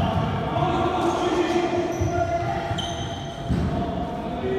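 A basketball bouncing on a sports-hall floor during play, with sneakers squeaking on the court about two and three seconds in.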